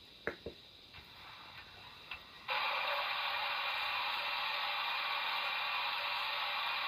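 A couple of sharp clicks, then about two and a half seconds in a loud steady steam hiss switches on abruptly from the model locomotive's sound-decoder speaker.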